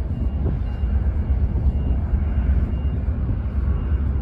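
Low, steady rumble of the ferry Ulysses' diesel engines and funnel exhaust as she pulls away from her berth.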